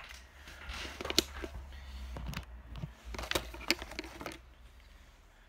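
Plastic packaging crinkling and rustling as it is handled and opened, with several sharp clicks, stopping about four and a half seconds in.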